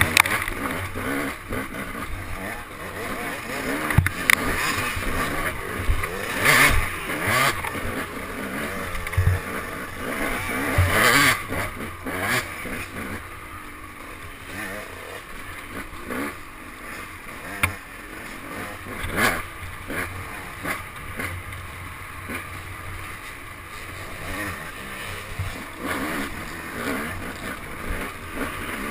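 Dirt bike engine revving up and down as it is ridden over a rough trail, with a few sharp knocks along the way.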